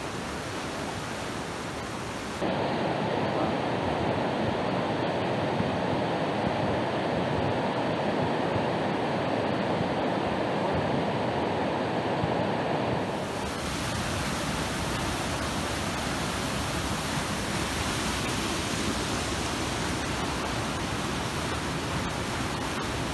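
River water rushing over rapids, a steady, even noise. From about two seconds in until about thirteen seconds it turns louder and duller, heard close up from the raft, then goes back to a brighter rushing.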